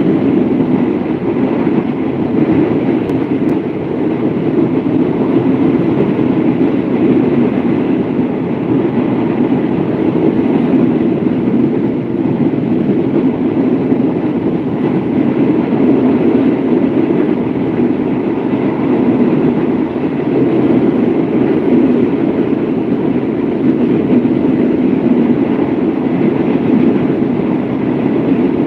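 Passenger train running steadily at speed, heard from an open carriage window: a continuous loud rumble of wheels on the rails and rushing air.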